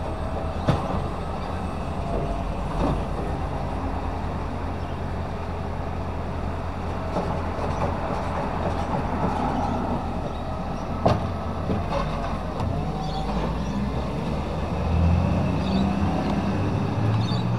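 Side-loader garbage truck running as its automated arm lifts and empties wheelie bins, with a few sharp knocks as bins are handled. Its engine grows louder near the end as the truck pulls away along the row.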